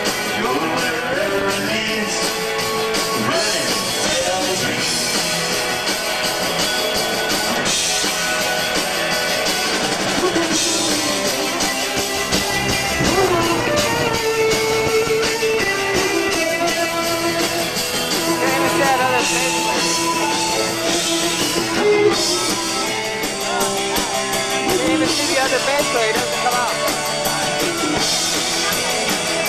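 A live rock band playing, with electric guitars and a drum kit.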